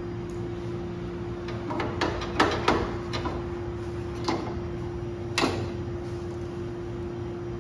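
A steady electrical hum with one constant tone, overlaid by about five sharp clicks and knocks of metal parts or tools being handled, the loudest two close together a little over two seconds in.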